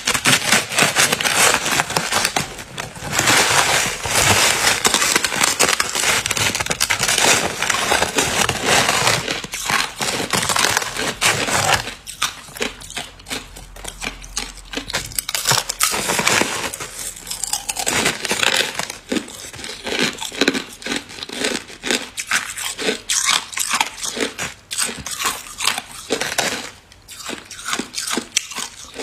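Hard clear ice being bitten and chewed close to the microphone. Dense, continuous crunching for about the first twelve seconds, then slower, separate crunches.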